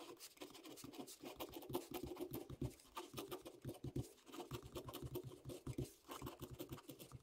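Ballpoint pen writing on grid paper: faint, quick scratching strokes of the pen tip as capital letters are drawn, with soft low thuds of the pen and hand on the pad.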